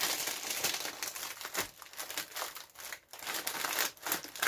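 Crinkling and rustling of a plastic biscuit packet being handled and torn open, in a continuous crackle of small irregular crackles.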